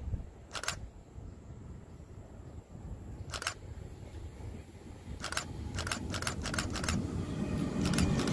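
An electric-locomotive-hauled regional train approaching along the line. Its rumble on the rails builds steadily from about five seconds in and is loudest at the end. A scatter of sharp clicks, single ones early and a quick run of them near the middle, sits on top.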